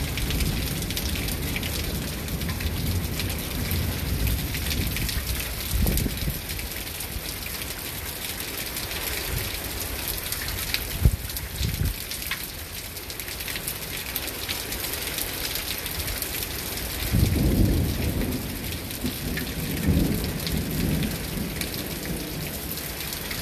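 Rain falling steadily in a thunderstorm, with thunder rumbling several times. The longest and loudest roll comes about two-thirds of the way through, and there is one sharp crack about eleven seconds in.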